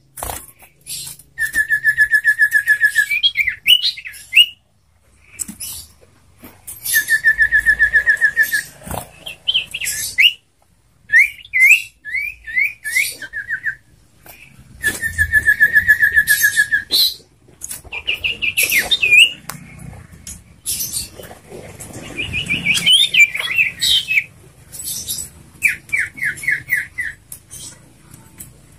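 A sirtu (common iora) singing a varied song. Fast trills of one to two seconds alternate with runs of short, quick upswept chirps.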